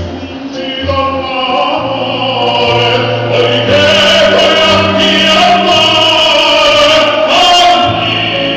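Opera singers singing, holding long notes with vibrato.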